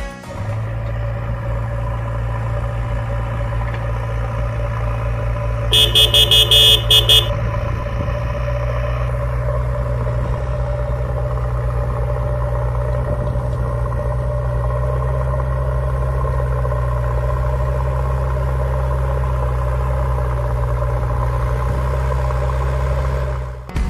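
Dubbed truck-engine sound effect, a steady low idling rumble, with a quick burst of about five horn toots about six seconds in.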